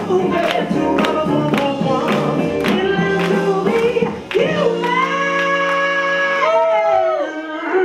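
Swing music with singing: a driving beat with steady drum hits for the first half, then the band breaks into long held notes, with a note sliding down near the end.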